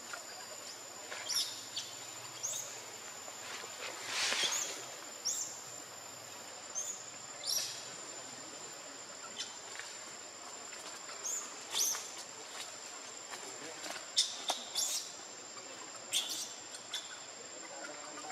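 Forest ambience: a steady, high-pitched insect drone, with short, squeaky, rising calls every second or two, the loudest about four seconds in.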